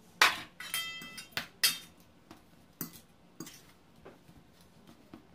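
Metal spoon and fork clinking and scraping against a stainless steel bowl as spice-coated fish pieces are mixed. The clinks come irregularly, the loudest in the first two seconds, a few ringing briefly.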